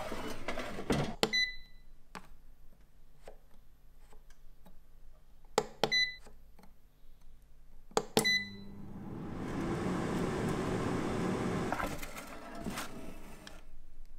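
Xiaomi smart air fryer: knocks as it is handled, short beeps from its control dial as the timer is set, then its fan running for about four seconds, swelling up and dying away.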